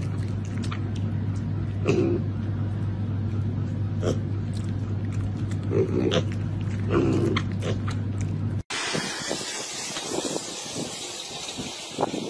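Piglets grunting a handful of times in short separate grunts over a steady low hum. About nine seconds in it cuts to wind noise on the microphone.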